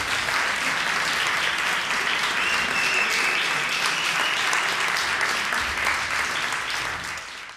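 Audience applauding, a dense patter of clapping that fades out near the end.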